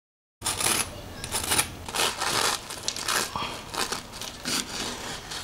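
A serrated bread knife sawing through a milk bun's crisp vanilla sugar crust, giving a crackling crunch with each stroke. The sound starts abruptly about half a second in.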